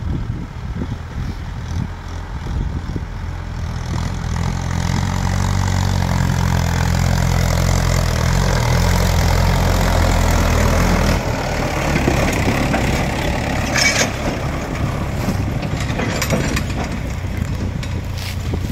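Mahindra Yuvo tractor's diesel engine pulling a trolley loaded with soil, growing louder as it approaches, loudest as it passes close about ten seconds in, then dropping away as it drives off. A sharp clatter from the trolley about fourteen seconds in.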